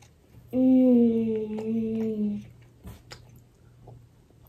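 A boy's hummed "mmm" with his mouth full, held for about two seconds with the pitch sagging slightly, followed by a few faint clicks.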